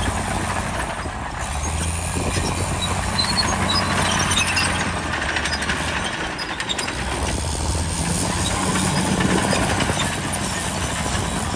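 Heavy diesel construction machinery running steadily, with a low engine drone and a noisy mechanical clatter over it.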